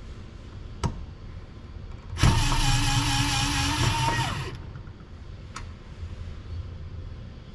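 Electric screwdriver held by a robot arm runs for about two and a half seconds with a steady motor whine, turning out an M6 fixing bolt. A sharp click comes about a second in, and another about a second after the motor stops.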